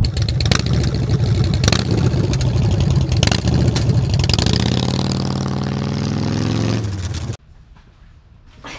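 Harley-Davidson V-twin motorcycle engine running under way, with a few sharp clicks, its pitch falling steadily over the last few seconds as it slows. About seven seconds in it cuts off suddenly, leaving quiet room tone.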